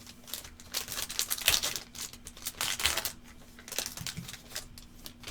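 Trading cards being handled and flipped through by hand: an irregular run of quick clicks, flicks and rustles as the cards slide against one another.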